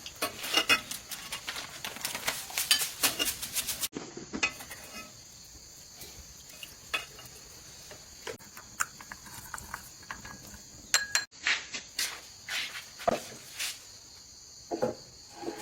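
Utensils clinking and scraping against pots and bowls in irregular bursts of sharp clicks, over a steady high drone of insects.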